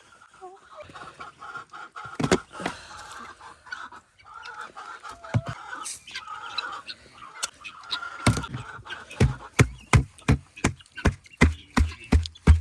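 Chickens clucking and calling, then from about eight seconds in, footsteps crunching through light snow at a steady pace, louder than the birds.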